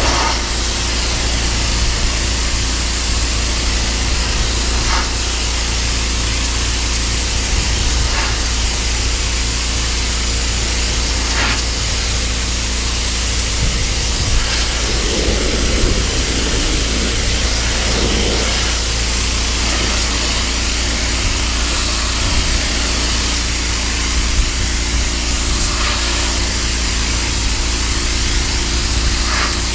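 Pressure washer spraying a jet of water onto weathered wooden deck boards: a loud, steady hiss over the machine's steady hum, blasting mold, mildew and dirt out of the wood.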